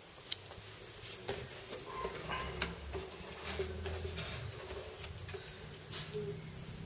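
Hand rummaging through paper slips in a cardboard box: light rustling with scattered small clicks, and one sharp click shortly after the start.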